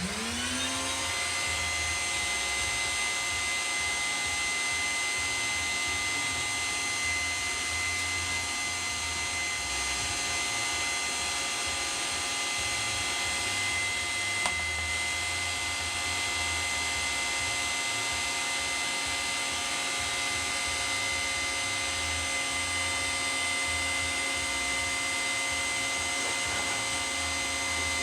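Wet/dry shop vac motor spinning up, then running steadily with a high, even whine. It is drawing air as a makeshift welding fume extractor. One brief click sounds about halfway through.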